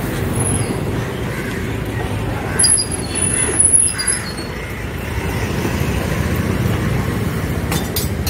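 Road traffic noise: a steady low rumble of passing vehicles, with a few brief high squeaks around three to four seconds in.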